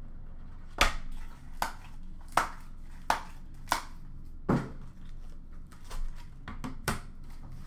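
A cardboard trading-card box and its lid handled and set down on a glass counter: about ten sharp taps and knocks at irregular intervals, the loudest about a second in and midway.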